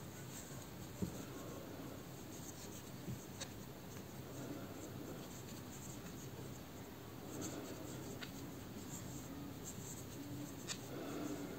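Faint scratchy rustle of cotton-blend yarn being pulled through stitches with a metal crochet hook, with a few small clicks scattered through it.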